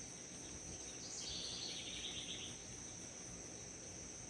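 Steady high-pitched chorus of crickets or other singing insects, with a bird's rapid trill for about a second and a half starting about a second in.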